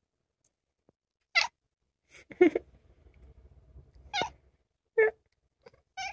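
Ginger tabby cat giving a string of about six short, clipped squeaky calls rather than a full drawn-out meow.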